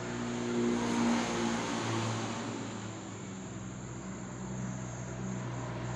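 A motor vehicle's engine passing by, its noise swelling about a second in and then easing off over a low steady hum.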